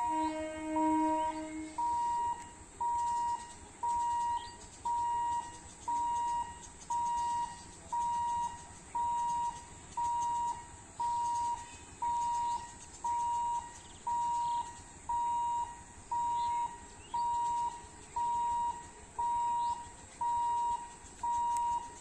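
Level-crossing electronic warning beeper giving a steady high beep about once a second, half a second on and half off: the train-approach warning while the rail gate is being closed. A low steady tone sounds alongside for the first two seconds, and birds chirp faintly.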